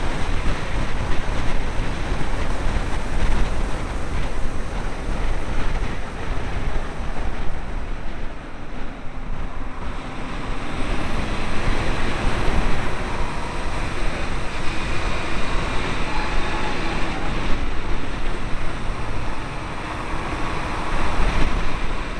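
Wind buffeting the microphone of a low, exterior-mounted camera on a Saab 9-3 2.0t BioPower driving at speed on a race track, with road and tyre noise underneath. The noise is steady and heavy in the low rumble.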